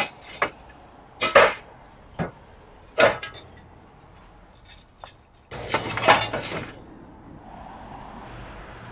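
Clay roof tiles clinking and knocking against each other as they are lifted off the battens and set aside. There are single sharp knocks every second or so, then a longer clatter about six seconds in.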